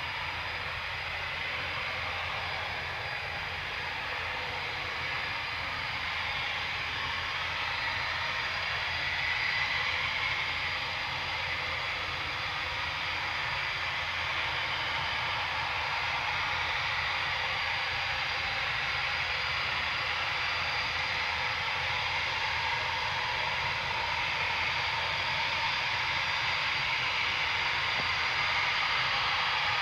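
Eurofighter Typhoon's two EJ200 turbofan engines running at low taxi power: a steady jet rush with a thin high whine, slowly growing louder.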